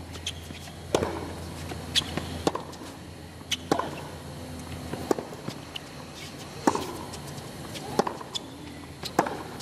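A tennis rally on a hard court: sharp knocks of racquets striking the ball and the ball bouncing, about one a second, some in quick pairs.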